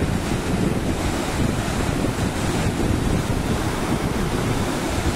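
Steady rushing of a mountain waterfall and a fast-flowing alpine river churning over rocks.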